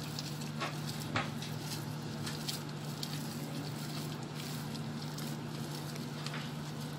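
Pizza dough being squeezed and kneaded by hand with oil worked in, giving faint soft squishes and slaps over a steady low hum.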